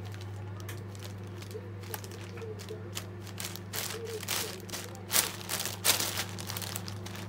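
Thin plastic shopping bag crinkling and rustling as a cat shifts around inside it. The crackles come in a run that is loudest about five to six seconds in, over a steady low hum.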